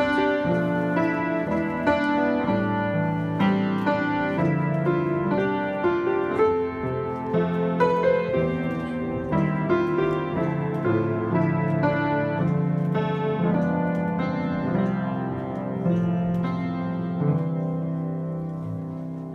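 Keyboard playing slow, sustained chords as a quiet instrumental, fading out near the end.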